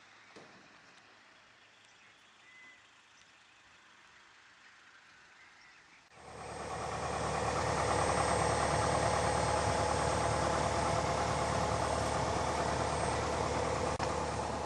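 Quiet background for about six seconds, then a light aircraft's piston engine comes in suddenly and runs steadily at low power, heard from inside the cabin.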